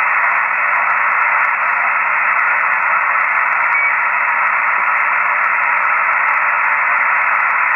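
Steady receiver static (open band noise, no station coming through) from an HF/CB radio on the 11-metre band, played loud through a small guitar amplifier used as an external speaker, with a faint steady hum underneath. It is the sound of listening for a reply after a CQ call with nobody answering.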